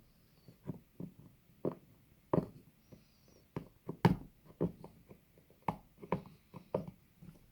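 Hands handling a cardboard phone box: a string of short taps, knocks and rustles, about two a second, the loudest about four seconds in.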